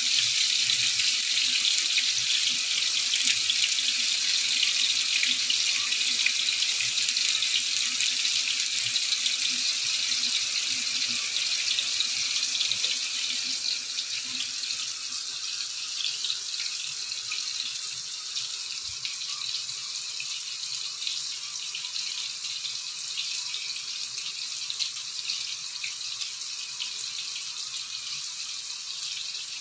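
Potato fries deep-frying in a pan of hot oil: a steady sizzle that slowly grows fainter.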